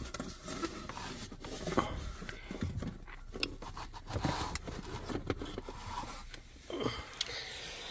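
A hand rummaging down inside a narrow plastic center-console slot, feeling for a dropped key: irregular scraping and rubbing with scattered small clicks and knocks.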